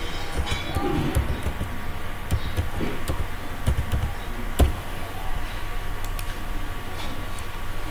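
Typing on a computer keyboard: a run of irregular key clicks, with one louder click about four and a half seconds in.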